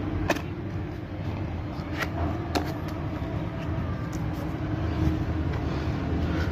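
A steady low engine-like hum in the background, with three light clicks and taps in the first three seconds as a hand works the cardboard box of a new motorcycle battery.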